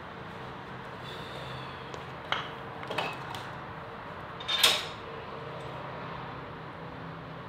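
Three short knocks or clatters of hard objects being handled, about two and a half, three and four and a half seconds in, the last the loudest, over a steady background hiss.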